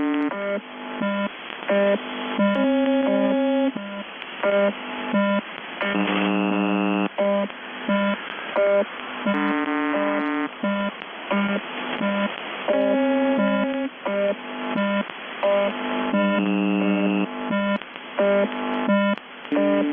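Shortwave radio reception on 4625 kHz, the UVB-76 'Buzzer' frequency, carrying strange electronic, synthesizer-like tones instead of the usual buzz. The notes change pitch every half second to a second, some held for about a second, over steady radio hiss, with the narrow sound of an AM shortwave receiver.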